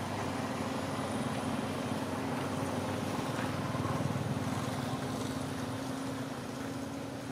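A motor engine running steadily nearby, a low drone that holds its pitch.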